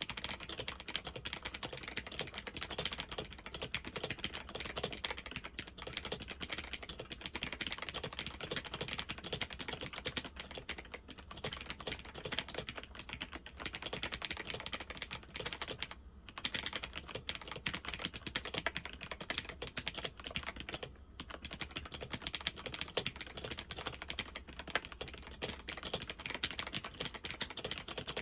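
Continuous fast typing on a laptop keyboard with Alps SKFL switches and doubleshot keycaps: a dense run of light key clicks, with a few brief pauses.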